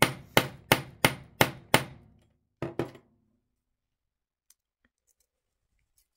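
Small ball-peen hammer striking a brass mainwheel bushing set in a brass clock plate over a steel anvil, peening the bushing's edge into the plate: six quick, evenly spaced blows, about three a second, each with a short bright ring. About a second later come two lighter knocks.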